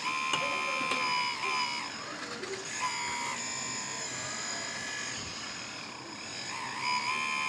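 Small electric hydraulic pump of an RC excavator whining, with several steady tones. The whine swells in spells, about a second in, near three seconds and near the end, as the valves send oil to the arm cylinders and the boom and bucket move.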